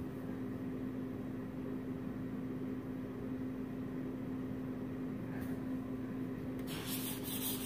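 Steady background hum with a constant pitched drone, like a running appliance or room equipment, and a brief soft rustle near the end.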